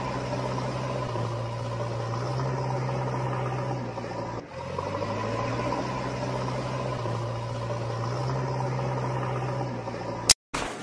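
Steady engine hum like an engine idling, briefly broken about four and a half seconds in, ending in a sharp click and a short cut-out near the end.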